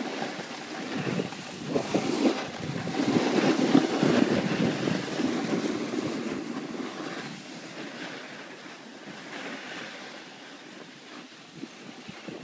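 Skis sliding and scraping over snow with wind rushing over the microphone, an even rushing hiss. It swells about two seconds in and dies down after about six seconds.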